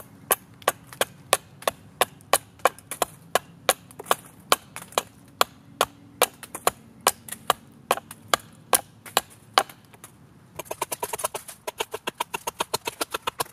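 Hatchet blade striking a wooden pole, shaving chips off its side with short, sharp chops about three a second. After a brief pause near the end comes a quicker run of lighter strikes.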